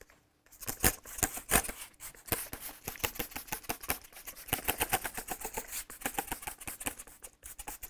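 Hand trigger spray bottle squirting water into a chiselled stone recess in quick repeated pumps, several hissy squirts a second, washing the loose dust and debris out of the prepped patch area.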